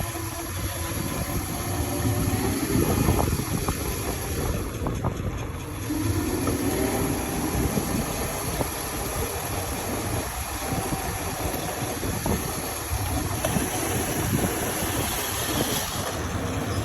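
Razor RSF650 mini motorbike's motor whining as it is ridden, the pitch rising and falling as it speeds up and slows, over rough rumbling wind and ground noise.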